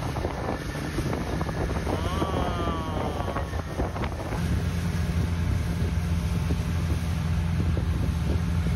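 Long-tail boat engine running steadily under way, with wind buffeting the microphone. The engine hum grows louder about halfway through.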